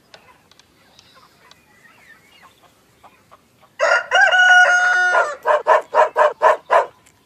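Cartoon rooster crowing once, about four seconds in, one long held call. It is followed by a quick run of about eight short calls.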